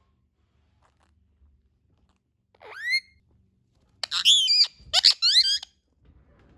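Indian ringneck parakeet vocalising: one rising call near the 3-second mark, then about a second later a louder string of short, high, bending calls lasting a second and a half.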